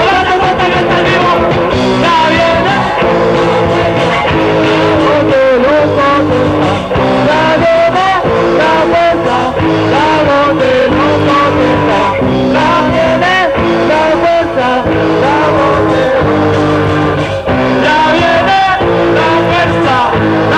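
Live rock band playing a song: amplified guitars and a rhythm section with a bending melodic line on top, sung or played on lead guitar.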